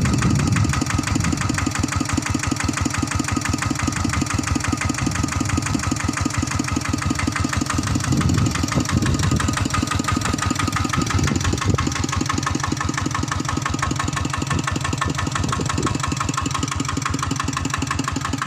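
Farm tractor engine idling steadily with a fast, even firing beat.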